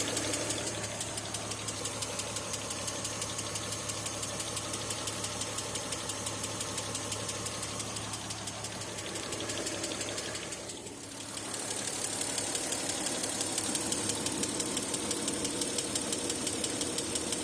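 Car engine idling with a rapid, even knocking that the owner cannot identify. The sound dips briefly about eleven seconds in, then returns with more hiss.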